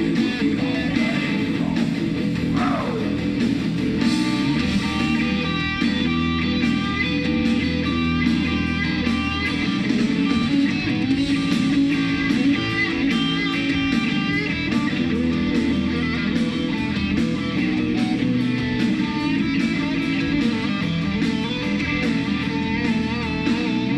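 Live blues-rock band playing an instrumental passage: electric guitar, bass guitar and drums, with a steady drum beat. The music cuts off abruptly right at the end.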